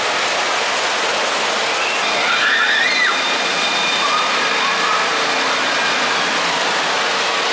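Steady, loud rushing and splashing of water in an indoor water park, with a few faint distant voices rising and falling about two to five seconds in.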